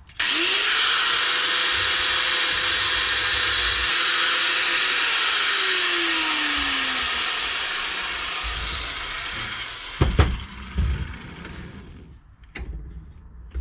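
Angle grinder with a cutting disc starting up and cutting through the steel of a car's suspension mount, with a loud hiss of disc on metal. The motor's hum rises sharply at the start, holds steady, then slides down as the grinder winds down. A few sharp metal knocks come near the end.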